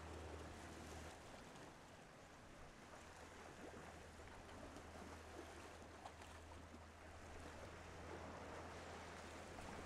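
Faint sea ambience: gentle water movement with a few faint ticks, over a steady low hum.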